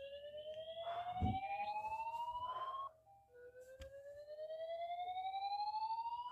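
Fire alarm sounding a slow whoop: a tone that rises steadily in pitch for about three and a half seconds, cuts off, and starts again from low after a short pause. A dull thump is heard about a second in.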